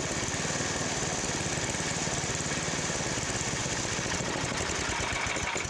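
MTD Yard Machines snow blower's small gasoline engine running steadily, now that its major vacuum leak has been fixed.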